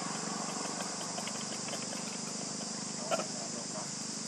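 Steady insect buzzing, with a few faint ticks and one brief sharp sound about three seconds in.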